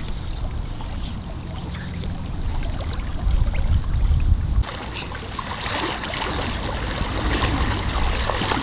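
Flowing river water with a low rumble. About halfway through the sound changes abruptly to closer splashing of legs wading through shallow river water.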